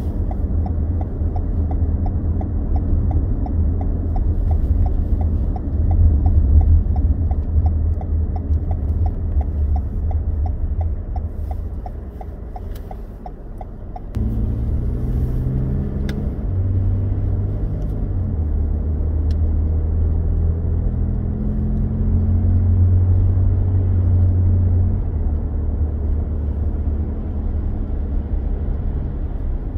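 Car driving on a suburban road, heard from inside the cabin as a steady low road-and-engine rumble. Through the first half a fast, regular ticking runs over it. About halfway through the sound changes abruptly, and the rumble then carries low steady tones that shift pitch in steps.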